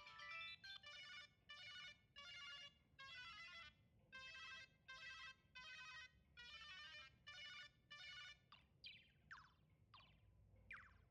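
Samsung SCH-A815 flip phone playing ringtones faintly through its speaker. A stepped electronic melody ends just after the start, then a tone made of short bursts of electronic notes repeats with brief gaps. From about eight and a half seconds in, a different tone of quick falling chirps starts, about two a second.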